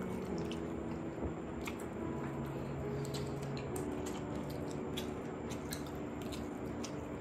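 Close-up wet chewing and squishing of mutton curry and pulao being eaten, with small mouth clicks and smacks scattered through.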